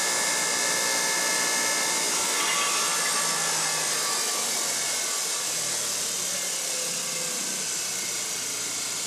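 Siemens 1PV AC motor and Netgain Warp 9 DC motor running coupled on a test stand: a steady electric whine and hiss that slowly gets quieter as the AC controller applies regenerative braking.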